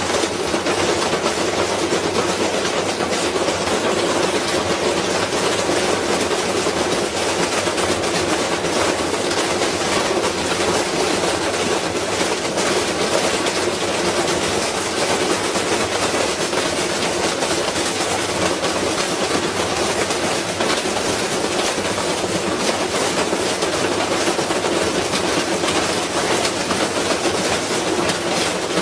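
Washing machine running with a brick inside the drum: a loud, steady, rapid clattering and rumbling that goes on without a break.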